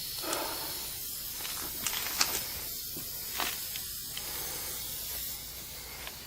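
Steady hiss of air escaping from a punctured, aired-up tire through the reamed plug hole, with a few light clicks and scrapes from the plug insertion tool.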